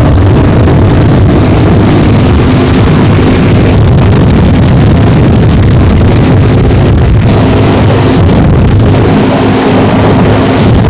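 Motorcycle engine running at a steady cruising speed, very loud, with wind noise buffeting the microphone.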